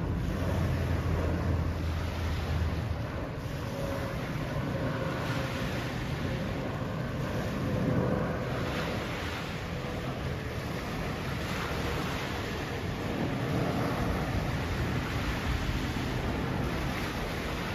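Wind gusting over river water washing on the shore, a steady rushing noise, with a deep rumble in the first few seconds. A faint engine hum runs through the middle, slowly dropping in pitch.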